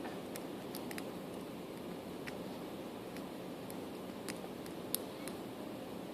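Light, irregular metallic ticks of a lock pick working the pin tumblers of a CISA brass padlock under tension, with one sharper click about five seconds in, over a steady background hiss.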